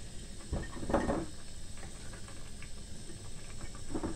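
Chopped black cabbage being put by hand into a glass jar: a few soft rustles and light knocks against the glass. The loudest comes about a second in, and another near the end.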